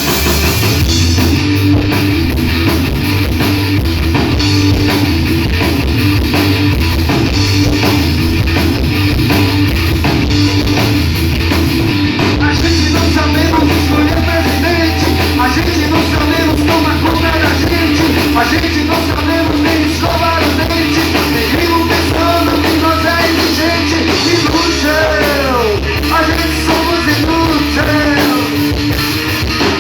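Live rock band playing loudly: distorted electric guitar, bass and drum kit in a punk-rock style.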